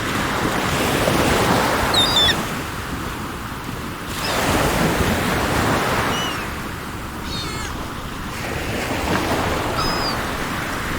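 Sea waves washing ashore in slow surges, three swells rising and falling, with a few short bird chirps above them.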